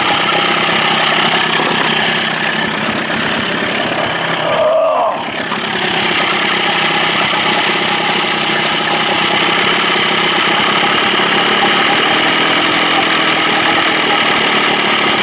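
Johnson 25 hp two-stroke outboard motor idling steadily while its throttle pickup is being adjusted. Its sound dips briefly about five seconds in.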